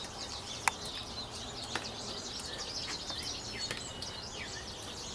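Songbirds singing and chirping in the background, a busy scatter of short, high calls, with two sharp ticks in the first two seconds.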